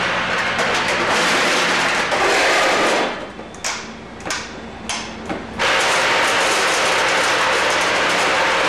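Tridyne F-206 automatic packaging machine running: a dense mechanical clatter over a steady motor hum. The clatter drops away for about two and a half seconds in the middle, where a few separate clattering bursts come through, then returns at full level.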